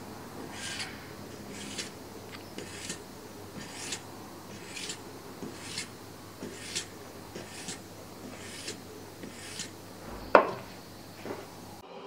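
Hand-held abrasive or file drawn along a steel knife blade in about ten even strokes, roughly one a second, each a short hissing rasp. A sharp knock a little past ten seconds in.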